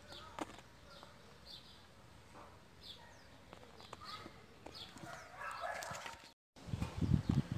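Small birds chirping over and over in short, high, falling calls, with a few faint clicks. Near the end, after a brief cut, a louder low clattering starts.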